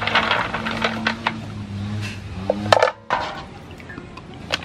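Clam shells clattering and clinking against one another and the metal basin as hands scrub them in water. The clatter stops suddenly about three seconds in.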